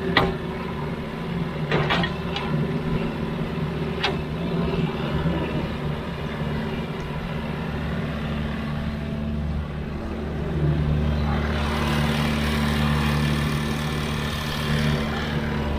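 Sany excavator's diesel engine running steadily, with a few sharp knocks in the first four seconds. About ten seconds in, the engine rises under load, and a rushing noise sets in over it for a few seconds before easing near the end.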